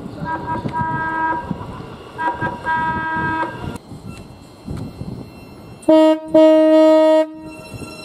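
Horn of a Class 700 electric multiple-unit train. It first sounds a string of short toots, then, about six seconds in, much louder blasts: a brief one, a long one held for over a second, and a short one at the very end.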